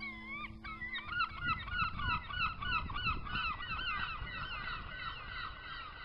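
A flock of birds calling, many overlapping wavering cries over a low rumbling noise, fading toward the end.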